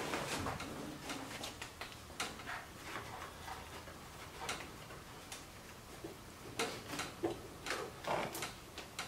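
Scattered light clicks, taps and rustling as a Mazda Miata's soft top and its frame are handled and fitted, in an irregular pattern with no steady rhythm.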